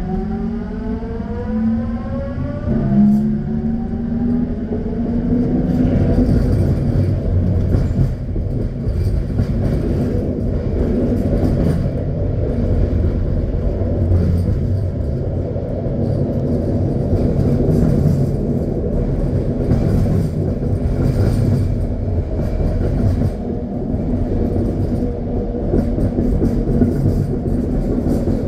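SkyTrain car running on its elevated guideway, heard from inside at the front: the propulsion whine climbs in pitch in several steps over the first three seconds as the train accelerates. It then settles into a steady rumble of the running gear, with repeated clicks from the wheels on the track.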